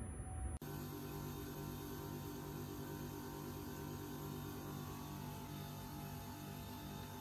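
Faint steady hum of several tones with a fast, even pulsing, starting abruptly just under a second in.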